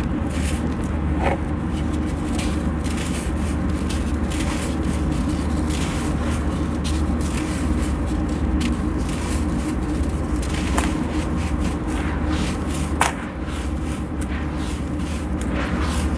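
Hands crumbling dry sand-cement mix: a gritty hiss as the sand and powder pour through the fingers, with scattered small crackles of clumps breaking and a few sharper cracks, over a steady low rumble.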